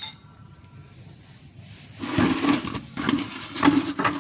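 A sharp metallic clank at the start, then from about halfway an irregular run of clattering and scraping: metal hand tools being handled under the car while a wrench is readied for the oil drain plug.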